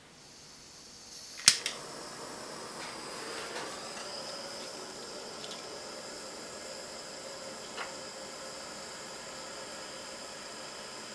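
Butane soldering torch being lit: gas hissing, a sharp igniter click about a second and a half in, then a steady hissing flame for heating a wire splice to solder it. A small click sounds near the end.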